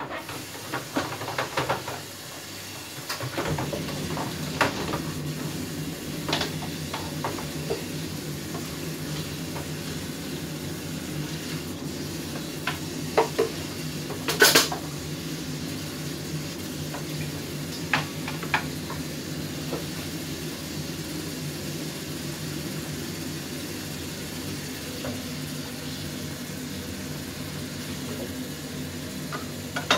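Pots, pans and utensils clattering and knocking now and then, with a steady low hum that starts about three seconds in. The knocks come thickest in the first few seconds, with a sharp clatter in the middle.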